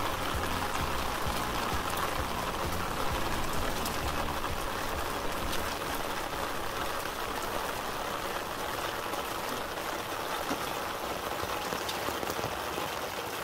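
Steady rain falling, with scattered small drop ticks throughout.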